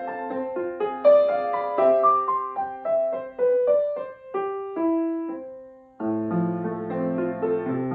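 Grand piano played solo: a quick line of separate notes that slows and dies away about five to six seconds in, then a fuller passage with low bass notes under the melody.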